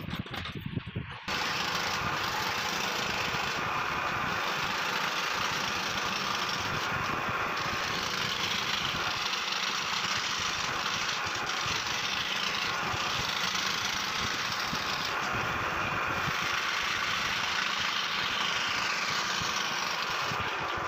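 Scroll saw running, its fine reciprocating blade cutting fretwork through a carved wooden plaque. A steady mechanical noise that comes in suddenly about a second in.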